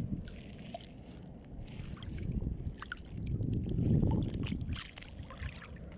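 Sea and wind noise aboard a small fishing boat: a low rumbling wash that swells twice and eases off near the end, with scattered light clicks.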